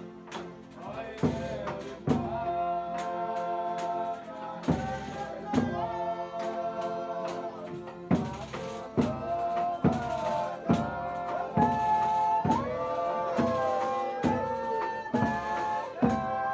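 Folia de Reis music: long, held sung notes that slide between pitches, over drum strokes about once a second.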